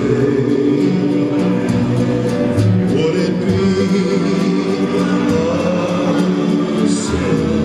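Waltz music playing steadily: a sung song over guitar accompaniment.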